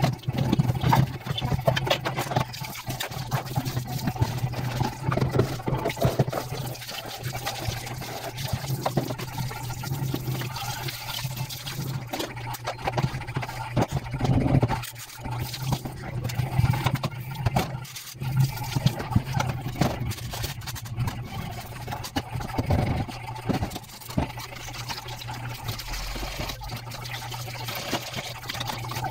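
Tap water running into a stainless steel sink while dishes are rinsed by hand, with frequent clinks of a metal bowl, a cup and spoons against the sink and each other. A steady low hum runs underneath.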